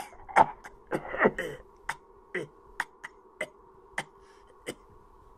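A series of short, sharp sounds from a person's throat, roughly two a second. The first couple are louder and voiced, the rest thinner and click-like, over a faint steady hum.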